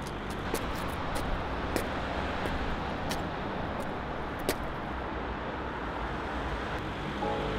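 City street traffic: a steady noise of cars driving past on a road, with scattered light clicks.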